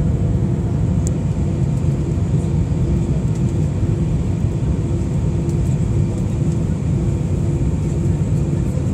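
Steady low roar of an Airbus A319's cabin in flight, jet engine and airflow noise heard from a window seat over the wing, with a faint pulsing hum and a thin high whine.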